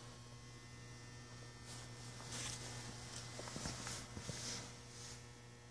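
A low, steady hum with a few faint rustles.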